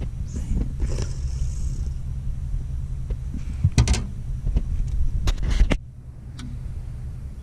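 Electric trolling motor humming steadily, cutting off suddenly about six seconds in. Knocks and rubbing from the camera being handled, loudest just before the motor stops.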